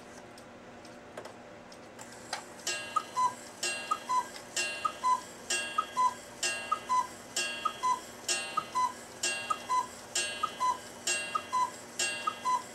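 Cuckoo clock calling the hour at noon: a two-note high-then-low cuckoo call repeating about once a second, starting about two seconds in, with the clock's movement ticking faintly underneath.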